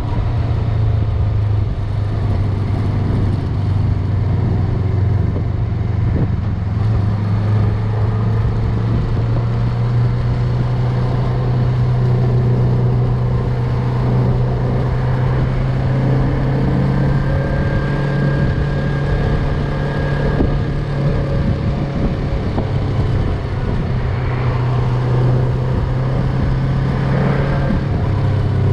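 Yamaha MT-03 motorcycle engine running at a steady cruise while riding, its low note holding with small shifts in pitch, over a rush of road and wind noise.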